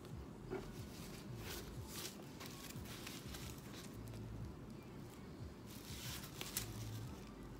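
White protective paper wrapped around a new handbag's handles crinkling and rustling in short, irregular bursts as hands handle it, loudest about two seconds in and again near the end.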